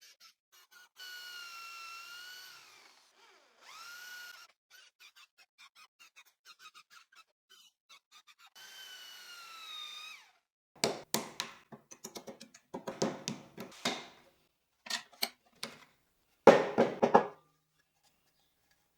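Drill boring into wood with a 35 mm Forstner bit: three short spells of a high, wavering motor whine. They are followed by a run of loud, sharp knocks in the second half.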